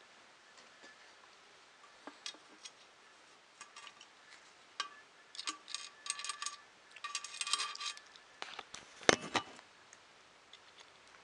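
Small metal clicks and clinks of bolts and nuts being handled against a metal frame plate, with a busy run of ringing clinks in the middle and one louder knock about nine seconds in.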